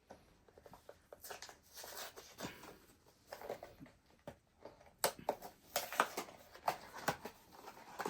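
Cardboard blind-box packaging being handled and opened by hand: scattered taps, scrapes and rustles, busier and louder from about five seconds in.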